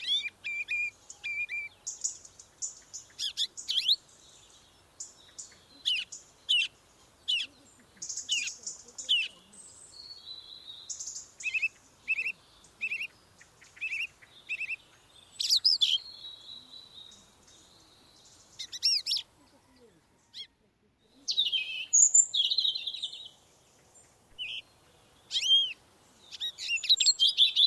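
Several songbirds chirping and singing in quick short notes and sweeping calls, overlapping at times, with a brief lull about twenty seconds in.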